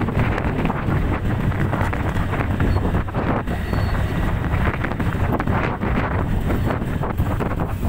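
Loud, gusty wind buffeting a microphone, over a steady low rumble.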